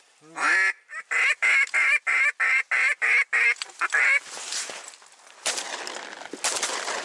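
Wind-powered goose call blown in a fast, even run of short honks, about four a second, imitating white-fronted geese to work an approaching flock. About five seconds in, a stretch of rustling and shuffling follows.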